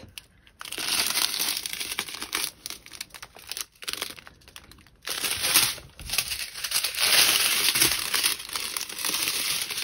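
Plastic packaging crinkling and rustling as it is handled, in uneven stretches with short pauses.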